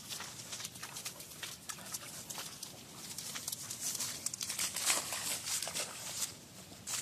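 Quick, irregular splashing steps as a springer spaniel runs through soaked grass and puddles, with a louder splash about five seconds in, over a steady hiss of rain.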